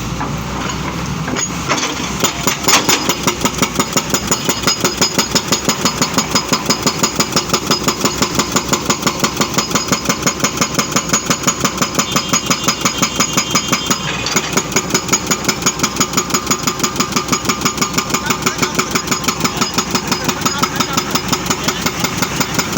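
Excavator at work: its engine running under load with an even, rapid knocking of about five beats a second that sets in about two seconds in.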